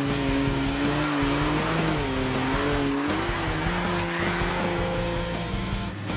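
Off-road 4WD truck engine revving, its pitch rising and falling repeatedly.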